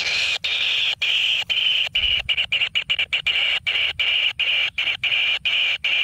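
Kingfisher nestling giving a continuous high-pitched buzzing begging call, broken by many brief gaps.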